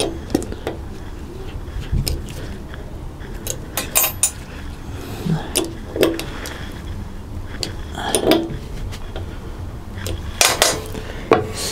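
Scattered small metallic clicks and light taps as a small metal key works the adjusting screw in a planer thicknesser's cutter block, setting one blade's height.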